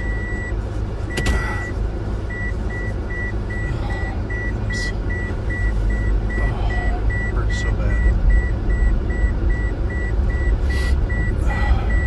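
Car's seatbelt reminder chime: a high beep held briefly, then a long run of evenly spaced short beeps, a little over two a second. Under it is the steady low rumble of the car driving, heard from inside the cabin.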